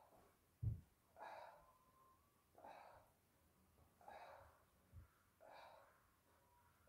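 A person breathing hard while exercising, with a forceful exhale about every one and a half seconds. A dull thud, likely a foot landing on the carpeted floor, comes just under a second in and is the loudest sound; a fainter one follows later.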